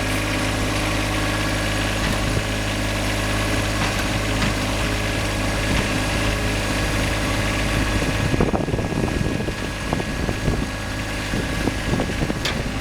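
John Deere 1025R compact tractor's three-cylinder diesel engine running steadily. From about eight seconds in, its steady note breaks up and irregular knocks and scrapes join it.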